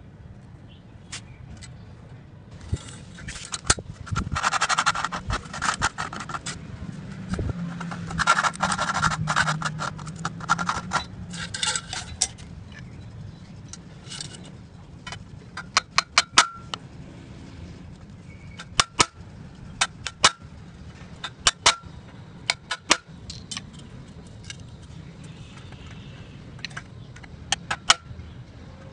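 Hand work on a PVC pipe: two spells of rapid scratching and rustling, then a run of sharp clicks and taps, singly and in quick groups of two to four.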